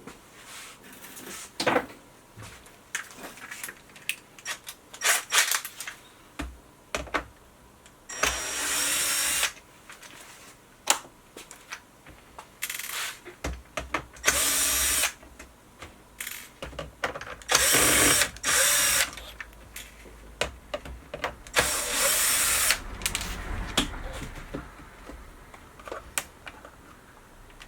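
Cordless electric screwdriver running in four short spurts of about a second each, backing out the four screws of a box lid, with clicks and rattles of handling between the runs.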